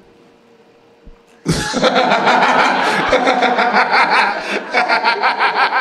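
Comedy-club audience breaking into loud laughter about a second and a half in, after a short hush.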